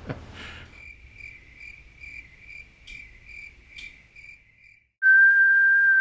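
A faint high chirping, about two chirps a second, stops abruptly near five seconds in. A loud steady test-pattern tone from an 'off-air' colour-bar screen then takes over.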